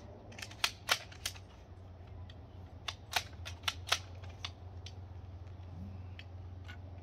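A series of sharp metallic clicks and clacks from a 12-gauge ATI Bulldog shotgun being handled and worked: three about a second in, then a quick cluster of about six around three to four seconds in, with a few fainter ticks after.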